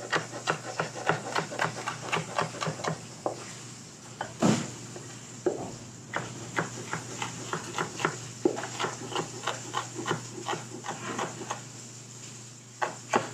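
Chef's knife chopping a red bell pepper on a plastic cutting board: quick, even knife strokes, about four a second, with one louder knock of the blade on the board about four and a half seconds in.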